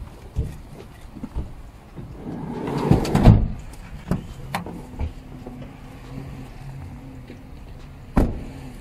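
Scuffling and knocks around a van, then a loud rushing thud about three seconds in as the van's sliding side door is slammed shut. After that, a steady low engine hum, broken by a sharp knock near the end.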